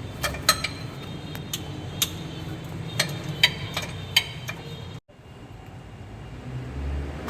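Irregular sharp metallic clicks and clinks, about two or three a second, over a low hum, typical of hand tools being handled during work on a truck. About five seconds in the sound cuts out suddenly, then a steady low hum follows.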